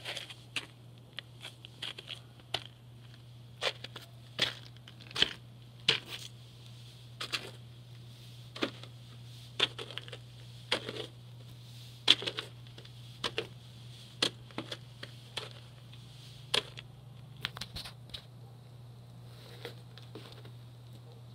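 Footsteps crunching on a thin layer of snow on a wooden deck, irregular sharp crunches about one a second, over a steady low hum.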